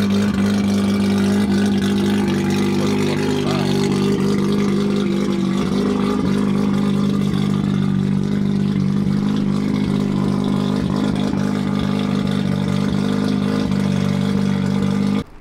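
Mazda RX-7 FD's twin-rotor rotary engine idling through its exhaust: a loud, steady drone that cuts off suddenly near the end.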